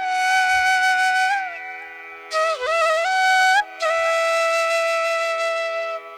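Background music: a flute playing long held notes that slide and bend between pitches, over a steady drone.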